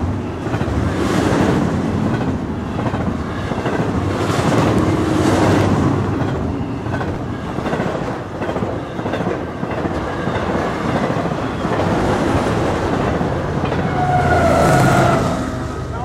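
A train rolling past at close range, its wheels clattering steadily over the rails with a clickety-clack. A brief squealing tone rises out of the noise near the end.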